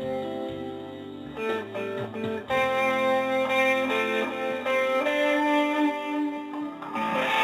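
Guitar music: held plucked notes and chords over a low bass line, growing louder about two and a half seconds in.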